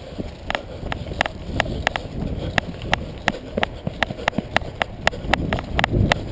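Brisk footsteps on a dirt trail, about three a second, each with a sharp click or rattle of carried airsoft gear, over a low rustle.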